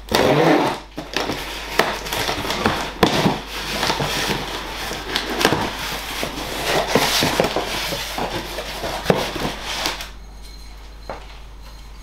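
Packing tape on a cardboard box being slit open, then the flaps pulled back and stiff cardboard handled: a busy run of scraping, crinkling and tearing with sharp snaps, stopping about two seconds before the end.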